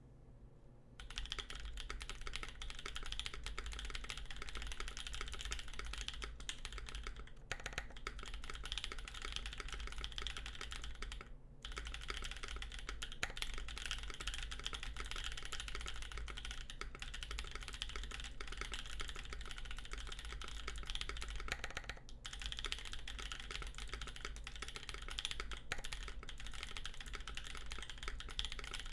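Continuous typing on a CannonKeys Savage65 mechanical keyboard with lubed Gazzew Boba U4T tactile switches, FR4 plate and GMK keycaps, a dense run of keystrokes. It starts about a second in and stops briefly three times.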